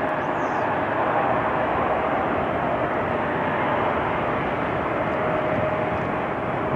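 Jet airliner's engines: a steady roar with a faint steady whine running through it.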